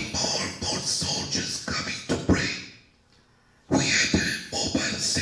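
A man's voice talking into a handheld microphone, in two stretches with a pause of under a second just past the middle.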